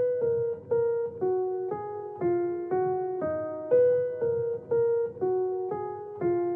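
Background music: a keyboard with a piano-like sound playing a simple melody of single notes, about two a second, each note fading before the next.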